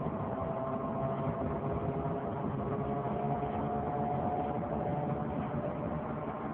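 Loud whining drone from the front driver-side wheel area of a 2003 Saturn Vue on the move, its pitch rising slowly, going with the speed of the tyres. A new wheel hub has not cured it.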